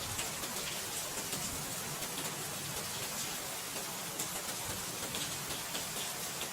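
Steady rain falling, a constant hiss with many small drops pattering.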